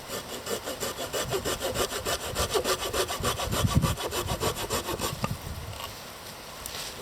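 Hand saw cutting through wood in quick, even back-and-forth strokes, pausing about six seconds in.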